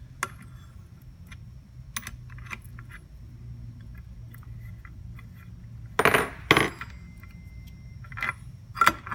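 Metal parts of a Stihl trimmer's blade mount clinking as the loosened nut, washer and blade are handled: a few light clicks, then two louder clanks about six seconds in, and more clicks near the end.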